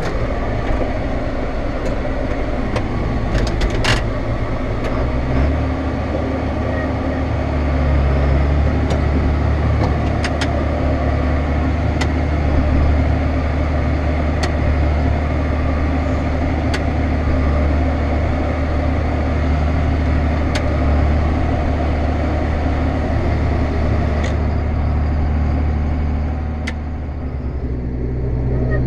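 Tractor engine running steadily under way. About five seconds in, its note steps up and gets louder.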